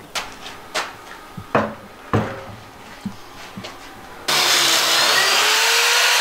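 Several sharp wooden knocks as boards are handled. About four seconds in, a corded electric drill starts and keeps running, boring into a board through a pocket-hole jig, its motor whine wavering up and down.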